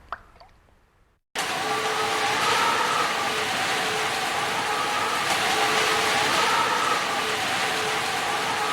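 A few water drips fading out, then an abrupt cut to steady heavy rain with a faint wavering hum underneath.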